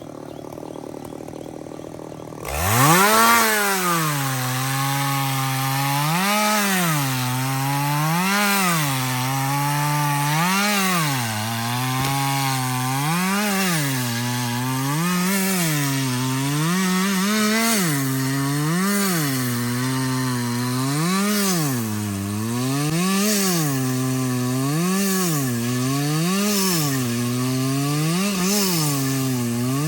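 Chainsaw cutting through wood: it opens up to full throttle about two seconds in, and its engine note then dips and recovers in pitch about every two seconds as the chain bites into the cut.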